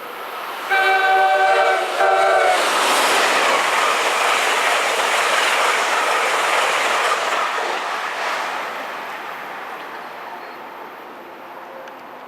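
Amtrak passenger train sounding its multi-note horn as a warning to workers at the track: one long blast, then a short one. The train then passes at speed with a loud rush of wheel and wind noise that slowly fades away.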